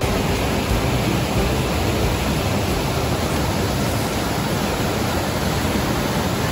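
Rushing water of a mountain stream cascade: a steady, even rush of falling water that cuts in and cuts off suddenly.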